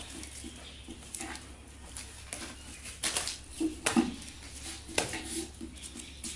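Red paper-wrapped firecrackers being handled and pressed together into a bundle: irregular rustles and light taps, the sharpest about four and five seconds in, over a steady low hum.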